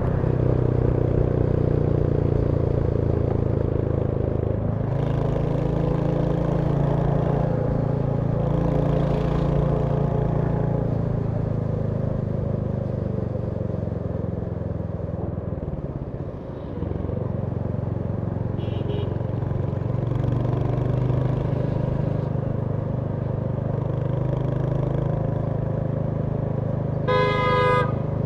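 Royal Enfield Hunter 350's single-cylinder engine running on the move, easing off briefly about halfway through. Near the end a vehicle horn honks in several short toots.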